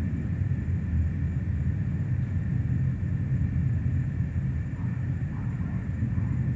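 Distant low rumble of a Falcon 9 rocket climbing after launch, steady and wavering, with no sharp events.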